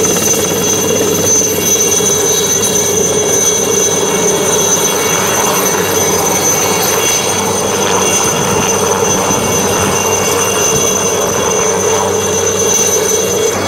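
Light military helicopter taking off: turbine engine and main rotor running at full power as it lifts off and climbs away, a loud steady noise with a high whine.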